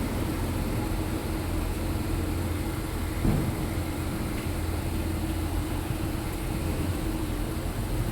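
Lincoln MKS moving off slowly, heard from inside the cabin: a steady low rumble of the V6 engine and road with a steady hum, and one short bump about three seconds in.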